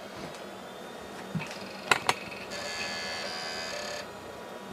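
Packard Bell Legend 204CD 486 PC going through its power-on self-test: two sharp clicks about two seconds in, then a steady buzzy tone for about a second and a half.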